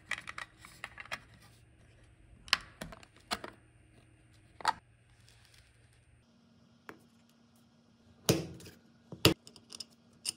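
Small 3D-printed plastic parts clicking and tapping against each other as they are handled and snapped together. The clicks are irregular, with a few louder knocks a few seconds in and again near the end.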